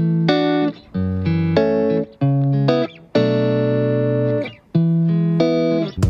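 Background instrumental music: a melody of sharply struck, ringing notes in short phrases.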